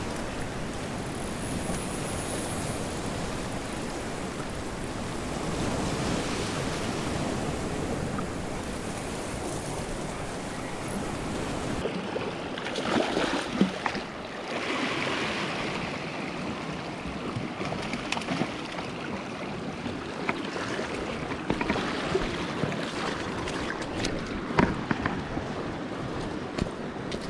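Sea water washing over a rocky shore, a steady rushing wash with some wind on the microphone. About halfway through there is a short burst of splashing as a released smoothhound thrashes off through the shallows.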